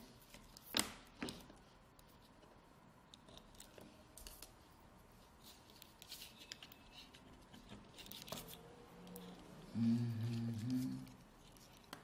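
Small clicks and rustles of jumper wires being handled and pushed into breadboard and Arduino header sockets, with two sharper clicks in the first second or so. A short low murmur of a man's voice near the end.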